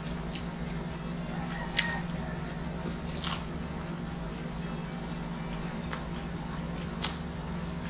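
Close-miked chewing and biting of pizza and stir-fried noodles, eaten by hand, with a few sharp crisp clicks: the loudest a little under two seconds in, another about seven seconds in. A steady low hum runs underneath.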